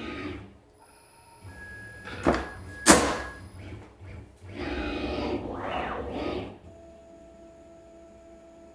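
AltMill CNC router with a RapidChange automatic tool changer swapping bits. Its motors whine, rising and then falling in pitch as the spindle moves. There are two sharp clacks about two and three seconds in, the second one the loudest, and a steady, quieter whine near the end.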